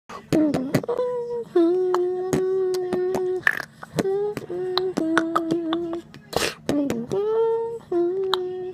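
A man beatboxing close to a phone's microphone: a hummed note held for a second or two at a time, with quick swoops in pitch between, cut through by sharp mouth clicks and a couple of short hissing snare sounds.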